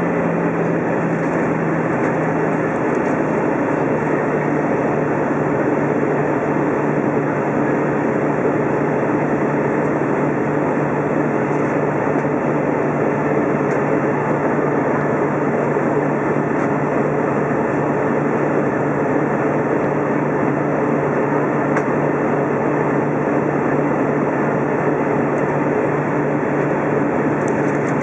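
Steady cabin noise inside an Airbus A320 in flight, heard from a window seat beside the engine: an even rush of engine and airflow with a low steady hum that dips slightly in pitch a couple of seconds in.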